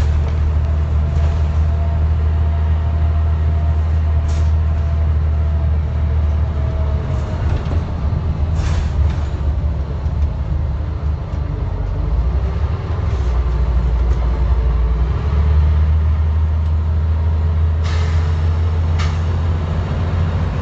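Scania N94UD double-decker bus's five-cylinder diesel engine running under way, heard from inside the cabin as a deep steady drone. The drone drops lower for a few seconds past the middle and then comes back up. A few sharp rattling clicks sound from the bodywork.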